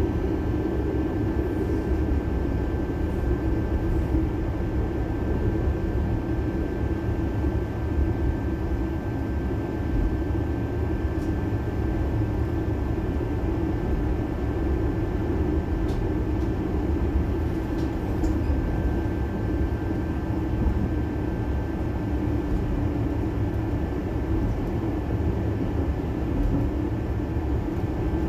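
Electric tram running along its rails, heard from inside the car: a steady rumble of wheels and running gear with a constant high whine, and a few faint clicks.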